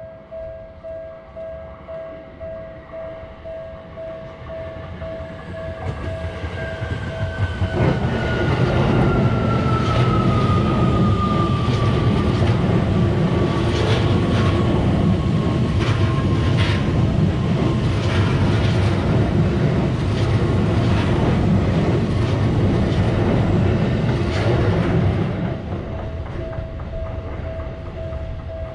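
Railroad crossing warning bell ringing about twice a second as a train approaches. The train then passes for about seventeen seconds with a heavy rumble and the rhythmic clatter of wheels over rail joints, under a whine that slowly falls in pitch. The bell is heard alone again near the end.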